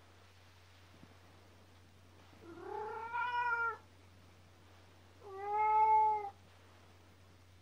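Domestic cat meowing twice: two drawn-out cries of about a second each, a couple of seconds apart, the first rising in pitch at its start.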